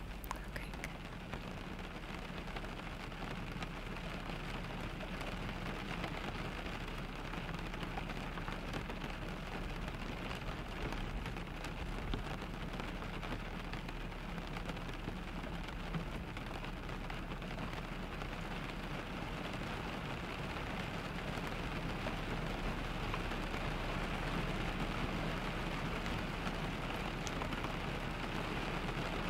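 Steady rain falling on a car's windows and roof, over a constant low rumble from the car driving. The rain grows slightly louder toward the end.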